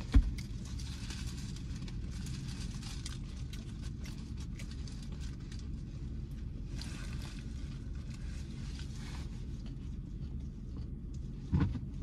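Paper food wrapper crinkling and rustling in hands in short bursts, over a steady low hum inside a car. A sharp thump comes just after the start and another near the end.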